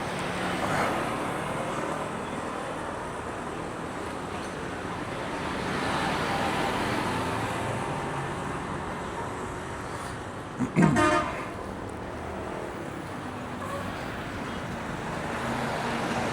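Steady street traffic passing by, with a vehicle horn tooting briefly in a quick double honk about two-thirds of the way in, the loudest sound.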